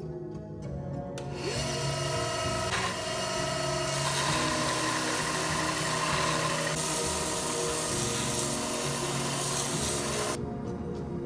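Bench belt sander grinding a forged steel knife blade: a steady, loud rasping hiss that starts about a second in and cuts off shortly before the end.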